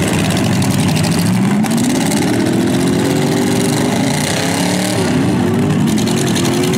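Several demolition derby trucks' engines running hard as the trucks push against each other. One engine revs up about a second and a half in and holds high, drops briefly near five seconds, then revs up again.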